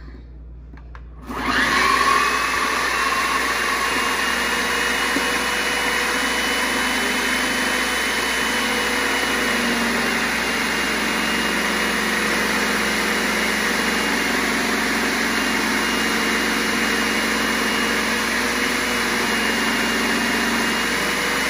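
Veggie Bullet electric food processor motor switching on about a second in, its whine rising briefly as it spins up, then running steadily as collard greens are pressed down the feed chute. The chute is packed too full of greens.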